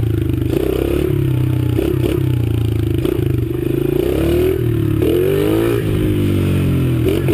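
Dirt bike engine under way on a trail, revving up and dropping back every second or so as the throttle is worked, with some rattling from the bike.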